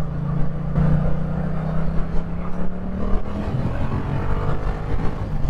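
Yamaha MT-07's parallel-twin motorcycle engine pulling on the road, its note rising gently for about two seconds, then easing off and settling lower a little past halfway as the throttle is rolled back.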